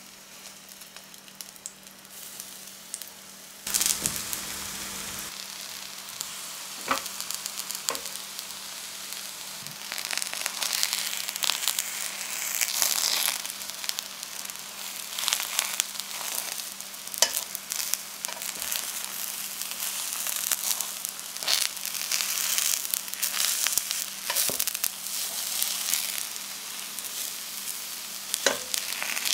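Aubergine wedges frying in hot oil in a wok: a faint hiss at first, then a loud sizzle that starts suddenly about four seconds in and keeps going, broken by frequent sharp pops and clicks.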